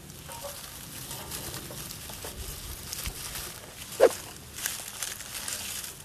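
Dry grass tinder and dry leaves rustling and crinkling as a burning tinder bundle is handled with gloved hands and pushed into a metal fire pit. There is one short, sharp knock about four seconds in.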